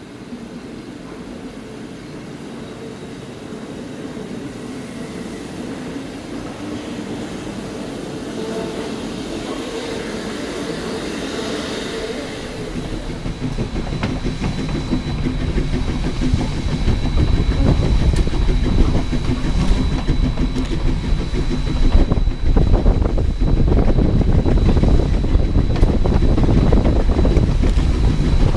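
Baldwin 2-8-0 steam locomotive running under steam, growing steadily louder. About halfway through the sound turns rough and close, with a dense beat and a heavy low rumble.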